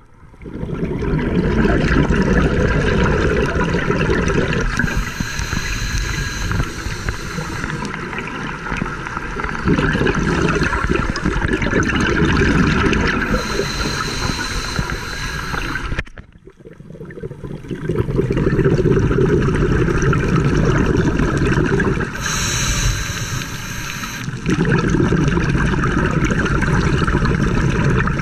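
Scuba breathing through a regulator, heard underwater. Hissing inhales with a faint whistle alternate with long rumbling bursts of exhaled bubbles, a slow cycle repeating about every eight seconds.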